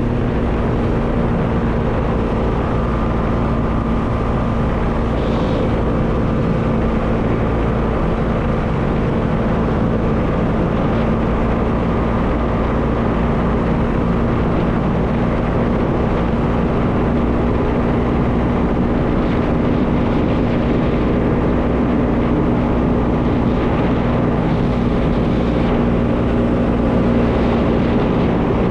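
Bajaj Dominar 400's single-cylinder engine running at a steady cruising speed, its note holding level, with wind rushing over the microphone.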